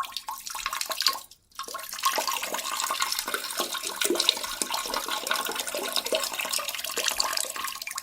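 Water running and splashing, with a brief break about a second and a half in.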